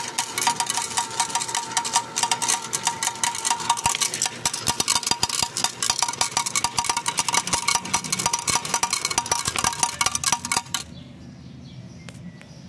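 Fruit Cocktail slot machine paying out: a rapid, continuous clatter of coins dropping from the hopper into the metal payout tray, over an electronic tone from the machine. It stops abruptly near the end.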